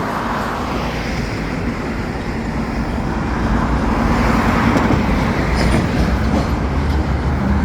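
Diesel freight locomotives running with a steady low hum, mixed with the wash of road traffic; the sound swells a little about halfway through.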